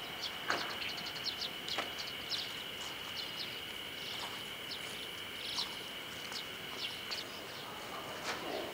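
Birds chirping repeatedly in short, high calls over a steady high-pitched drone and background noise.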